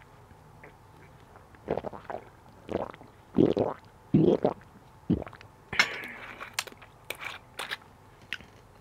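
A person gulping a drink straight from a small bottle: a few loud swallows in the middle, followed by several sharp clicks.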